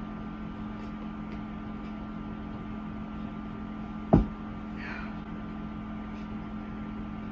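A steady background hum with a single sharp thump about four seconds in, followed shortly by a brief high falling squeak.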